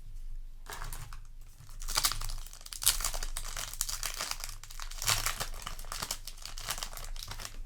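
Foil Yu-Gi-Oh! booster pack wrapper and cards being handled, crinkling and rustling in several bursts.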